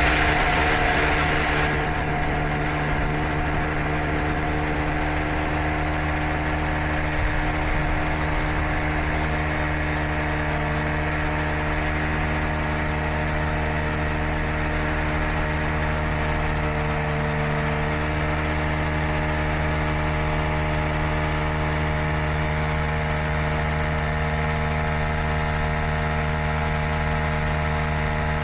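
A motor running steadily at one speed, with a constant hum.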